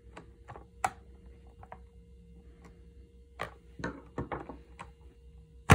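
Light clicks and taps of a screwdriver and hands working on a plastic knitting machine carriage as its handle screw is driven home. A few louder knocks follow, with a single sharp knock near the end, the loudest sound.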